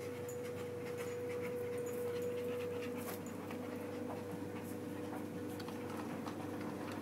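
A dog panting, over a steady faint hum.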